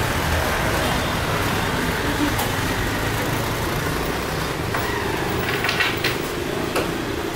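Steady rushing noise of an Airbus A320's jet engines at takeoff power as the airliner accelerates down the runway, heard from a distance.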